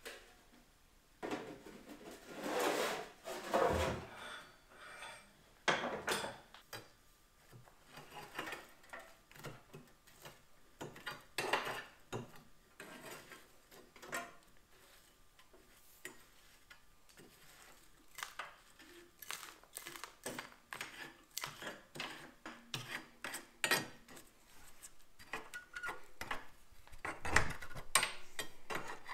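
Wood stove being cleaned: irregular metallic clinks, knocks and scrapes of tools and stove parts, with longer scraping strokes near the start and near the end.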